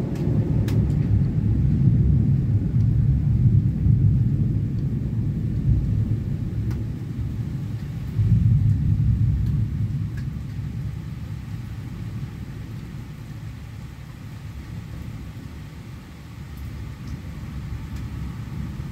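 Rolling thunder: a low rumble that builds over the first few seconds, swells again about eight seconds in, then slowly dies away.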